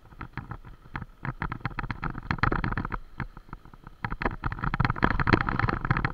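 Bicycle clattering and rattling over a bumpy dirt trail, with many quick irregular knocks over a steady rushing noise, louder from about two seconds in.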